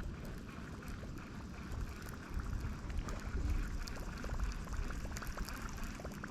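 Wind rumbling on the microphone outdoors on the water, with faint small ticks and clicks.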